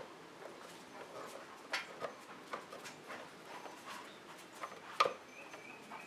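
Small flathead screwdriver prying at the plastic release tabs of a pickup's overhead console switch housing: scattered light plastic clicks and scrapes, the sharpest a little before two seconds in and at about five seconds.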